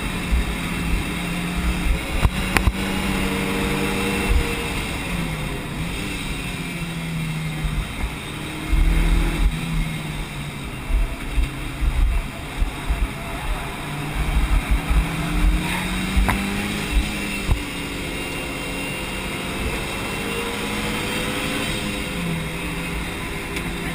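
Mitsubishi Lancer Evo Tommi Mäkinen's turbocharged 2.0-litre four-cylinder engine heard from inside the cabin, under way on a track, its pitch rising and falling several times as it pulls and eases off. Bouts of low thumps run underneath.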